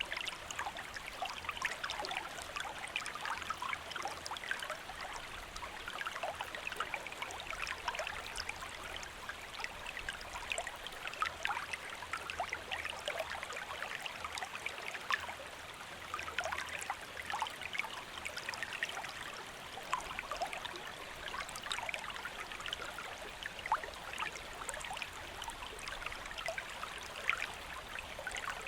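A shallow river or stream flowing steadily, its water trickling and babbling over stones with many small splashes and bubbles.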